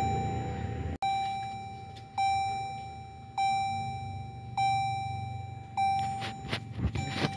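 A car's warning chime dinging over and over at one pitch, about once every 1.2 seconds, each ding ringing and fading before the next, six in all. A few sharp clicks of handling near the end.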